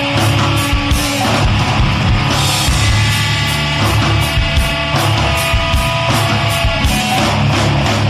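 Loud rock music with electric guitar and a drum kit keeping a steady, driving beat.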